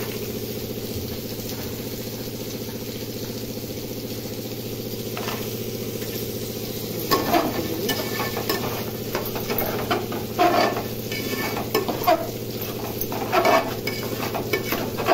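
A metal spoon stirring and scraping chickpeas through thick sizzling masala in an aluminium pot, in repeated strokes from about seven seconds in, over a steady hum.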